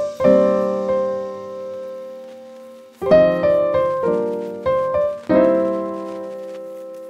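Background piano music: struck chords that ring and fade, then a pause of about two seconds before several more chords, the last one ringing out near the end.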